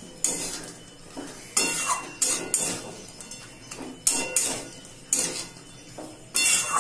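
A spatula scraping and knocking against a metal wok while stirring sauce-coated fried pieces, in separate strokes about every half second to a second.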